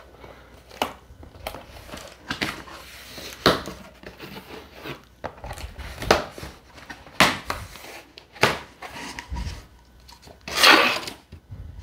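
Cardboard box being opened by hand: packing tape pulled loose and a cardboard flap lifted, with scattered taps, clicks and rustles. One longer, louder rustle comes near the end.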